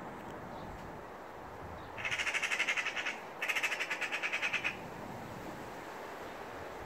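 Eurasian magpie giving its harsh rattling chatter in two bursts of about a second each, with a short gap between them. This is the alarm call magpies use when mobbing a predator, here a cat.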